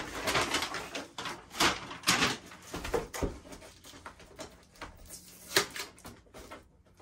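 Brown paper packaging crinkling and rustling as it is pulled out of a delivery packet, followed by the lighter scuffs and taps of a cardboard box being handled, in irregular bursts.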